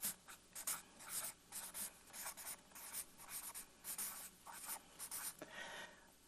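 Felt-tip marker writing on flip-chart paper: a faint run of short, quick strokes as words are written out.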